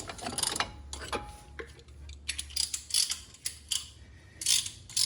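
Hand-operated brake caliper piston compressor being worked loose from the caliper: a series of irregular metallic clicks and ticks.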